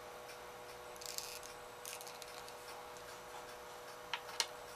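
A few faint clicks and light taps of small hard parts being handled, scattered irregularly with the sharpest pair about four seconds in, over a faint steady hum.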